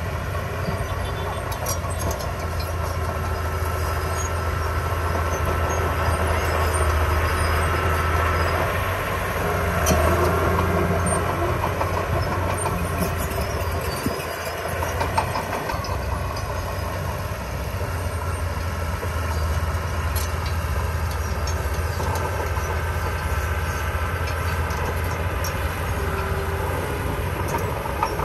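Small bulldozer's diesel engine running steadily under load, with its steel tracks clattering.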